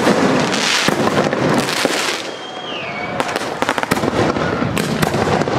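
Fireworks display: a rapid string of bangs and crackling from aerial shells bursting, then a short falling whistle about two and a half seconds in, followed by a second volley of bangs and crackle.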